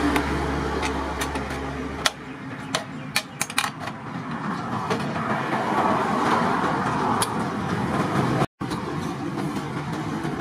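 Hand shears cutting a corrugated galvanized steel sheet: a run of sharp metallic snips and clicks, thickest between about two and four seconds in, over a rough haze of noise. A steady engine-like drone underneath stops about two seconds in, and the sound drops out for a moment near the end.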